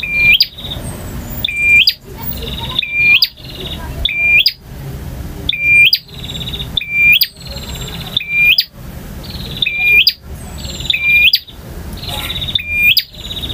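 Male prinia (prenjak) singing, repeating one loud phrase about ten times at roughly one-second intervals. Each phrase is a sharp upslurred note followed by a buzzy, rattling trill.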